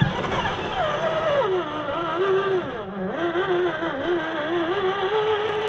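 Engine sound of an RC scale truck, its pitch falling over the first two seconds and then wavering up and down with the throttle before levelling off.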